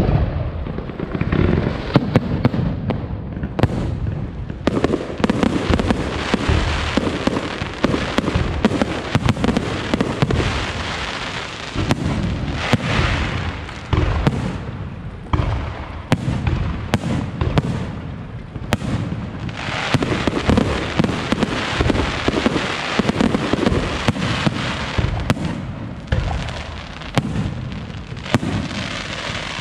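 Aerial fireworks going off continuously: many booming shell bursts one after another over a steady crackle.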